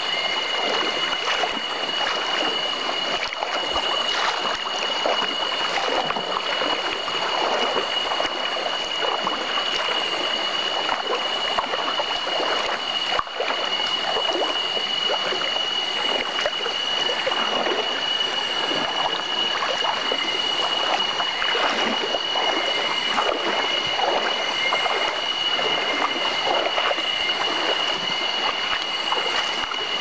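Shallow rocky stream flowing and rippling steadily, with a steady high-pitched whine over it.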